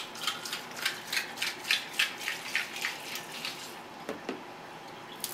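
Water splashing and sloshing in a glass container as it is rinsed out at a sink: a quick, irregular run of short splashes through the first three to four seconds.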